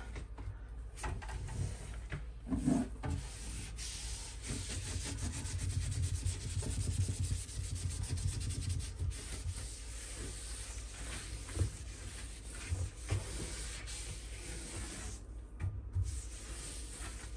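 A knitted scrubbing cloth rubbed hard back and forth over a pantry shelf and the wall beside it, to scrub off stains, with now and then a light knock.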